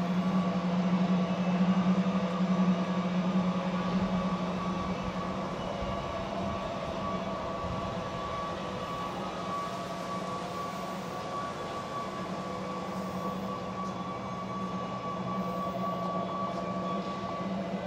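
5-inch gauge ride-on model locomotive running with riders aboard: a steady hum with a fainter high whine above it, louder over the first few seconds.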